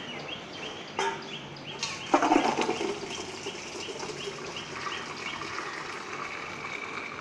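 Boiled raw papaya cubes and hot water poured from a pan into a steel colander: a metal tap about a second in, then a splash about two seconds in that settles into draining. A bird chirps repeatedly in the background, about two calls a second.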